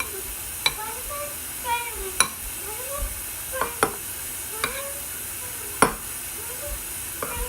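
A spoon stirring sticky, foamy slime in a bowl: wet squelching with short squeaks, and a sharp click now and then as the spoon knocks the bowl.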